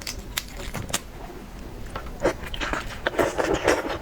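Close-miked eating sounds of shellfish: a few sharp clicks, then from about two seconds in dense crunching and crackling, loudest near the end.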